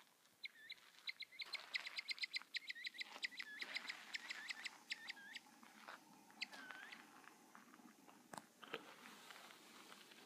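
Mexican speckled bobwhite quail (a northern bobwhite variety) giving a rapid series of short, high, swooping calls, about five a second for several seconds, then one slower call. This is her alarm noise at a stick she is wary of.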